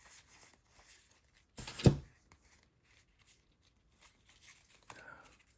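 Faint handling of a trading-card hanger box and its packs, with one short, loud, sharp noise about two seconds in.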